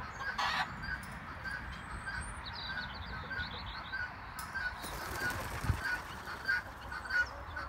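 Fowl calling: a short call repeated steadily about twice a second, over a low wind rumble, with a few small-bird chirps around the middle.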